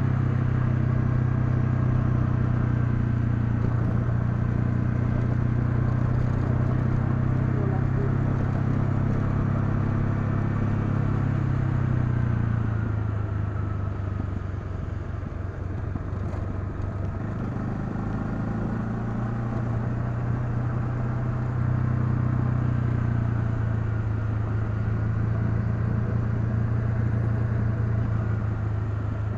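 Honda CL250's single-cylinder engine running under way at a steady pace. About twelve seconds in it eases off and drops in pitch, then picks back up about twenty seconds in.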